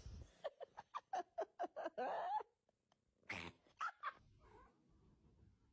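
A cat giving a quick run of short, laughter-like calls, about five a second, ending in a longer drawn-out call; a few more calls follow after a brief pause.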